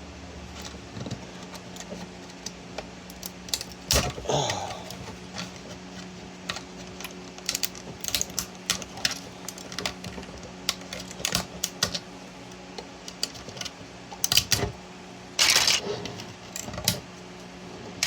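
Irregular clicks and snaps of PLA support material being picked and broken off a 3D print, with louder cracks about four seconds in and again near the end, over a steady low hum.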